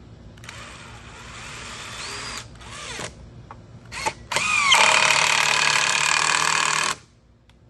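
Power drill driving a wood screw into the bench's wood: a run of about two seconds, two short trigger bursts, then a longer, louder run of about two and a half seconds that stops suddenly as the screw seats.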